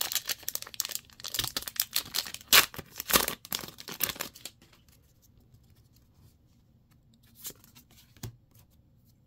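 Foil wrapper of a Magic: The Gathering collector booster pack torn open and crinkled by hand while the cards are pulled out, for about the first four and a half seconds. Then it goes quiet apart from two soft taps near the end.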